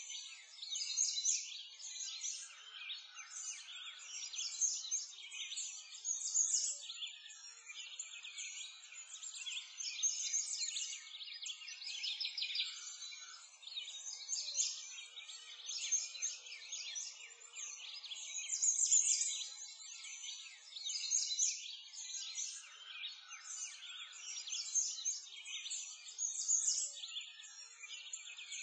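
Many birds chirping and trilling at once in a dense, continuous chorus of high calls that swells and fades.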